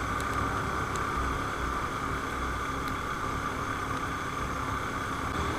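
Steady running noise of a moving road vehicle, engine hum and wind rush, even in level throughout.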